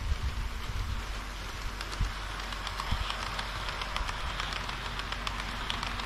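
HO-scale model diesel railcar running along sectional track: a steady rolling hiss from the wheels with quick clicks over the rail joints, the clicks growing denser and louder in the second half as the train comes close.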